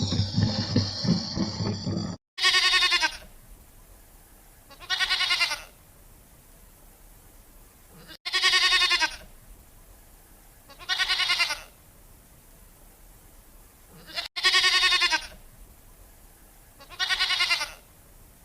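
Goat bleating: six quavering bleats in pairs, each under a second long, the same pair repeating three times about six seconds apart. Before the first bleat, a louder, rougher animal sound cuts off abruptly about two seconds in.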